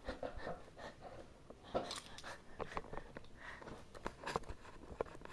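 Irregular small clicks, taps and crinkly rustles as a Christmas decoration is handled and fitted into place.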